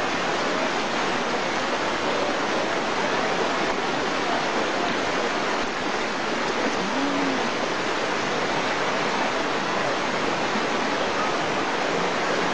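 Flooded river rushing in a steady, even torrent of water noise.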